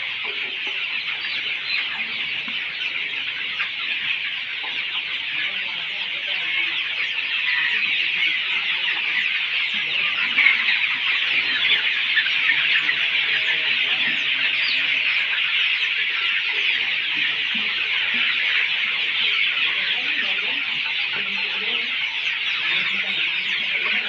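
A large flock of young chickens in a crowded poultry shed, many birds peeping and cheeping at once in a steady, dense, high-pitched chorus.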